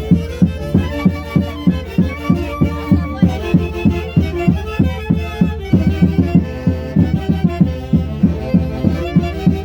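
Andean folk orchestra playing Santiago festival music: sustained melody lines over a steady, regular drum beat of about two and a half strikes a second.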